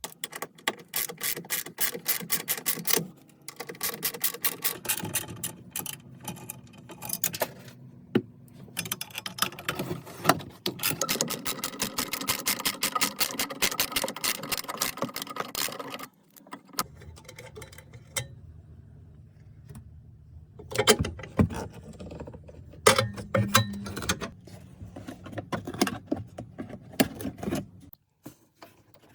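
Socket ratchet clicking in long runs of rapid clicks, as nuts on the battery are worked, followed later by a few louder knocks.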